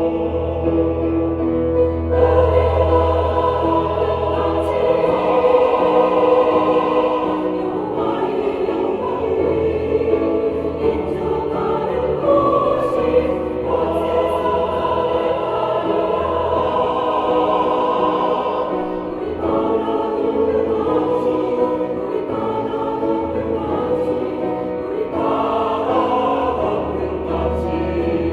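Church choir singing a sacred anthem in held, sustained chords over a low sustained accompaniment.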